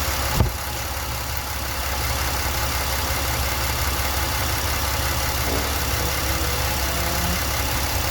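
Ford engine idling steadily under a constant hiss, with the EVAP purge valve stuck open and pulling vacuum all the time. A single sharp knock about half a second in.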